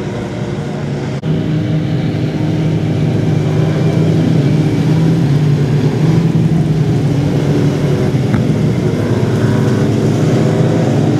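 A pack of compact speedcars' engines running together in a steady drone. There is a brief dropout about a second in, after which it is louder.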